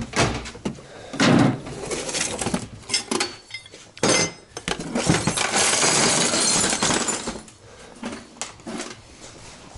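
Loose metal screws clinking and rattling as hands rummage through a box of assorted screws; the rattling is densest about five to seven seconds in, then dies down.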